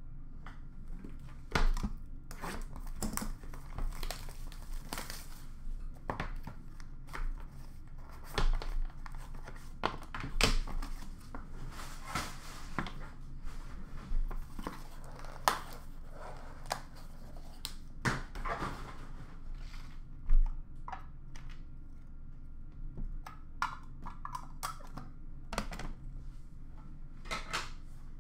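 Trading cards and their plastic and cardboard packaging being handled and sorted: irregular rustling and crinkling with light clicks and taps as cards and boxes are set down, and one sharper knock about twenty seconds in.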